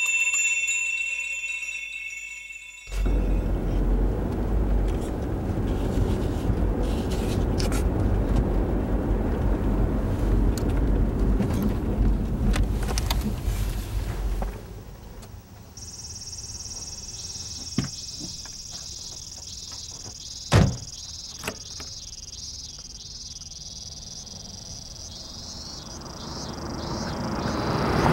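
A bell-like chime rings briefly, then the steady rumble of road and engine noise inside a moving car's cabin. After the drive cuts out, insects drone in a steady high buzz, with two sharp clicks, and near the end a car rushes up and passes close by.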